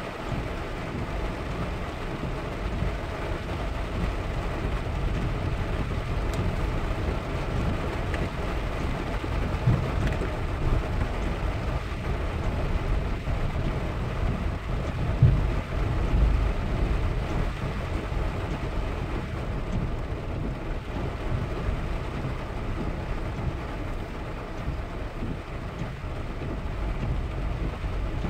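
Steady low rumble of engine and tyre noise inside a car driving on a wet road in rain, with two louder thumps about ten and fifteen seconds in.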